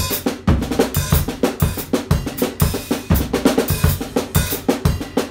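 Acoustic drum kit played fast and without a break: a polyrhythmic sixteenth-note pattern moving around the snare and toms over a steady bass drum beat, with cymbal accents.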